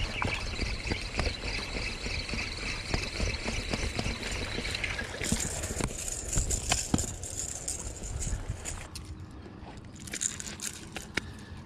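Water trickling and splashing, with many small clicks and knocks, growing quieter after about nine seconds.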